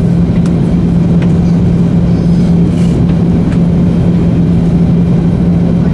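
Airliner cabin noise in flight: the steady rumble of jet engines and airflow, with a constant low hum.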